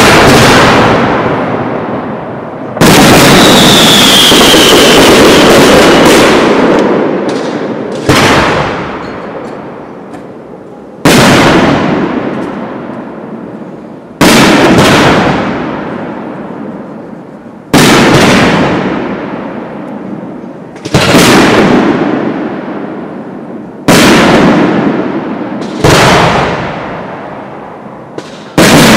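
Aerial firework shells bursting one after another, a sudden loud bang every few seconds, each fading away over a couple of seconds. About three seconds in, a longer run of bursts holds for several seconds, with a short falling whistle.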